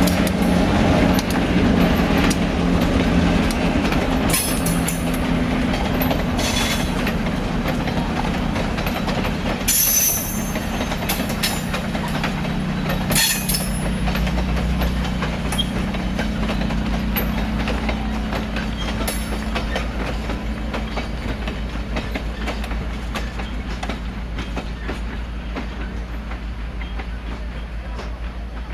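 Passenger coaches of a diesel-hauled tourist train rolling past on jointed track, wheels clattering, with a few short high-pitched squeals. The sound slowly fades as the end of the train moves away.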